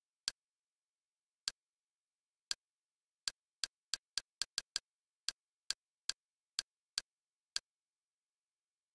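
Kodi menu navigation clicks, the interface's short click sound played once for each step of the highlight through a movie list. Sixteen clicks at an uneven pace, a quick run of them about four seconds in, with dead silence between.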